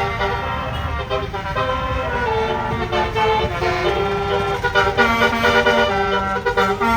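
Bus 'telolet basuri' musical horn playing a tune: held horn notes that step from pitch to pitch, over a low rumble.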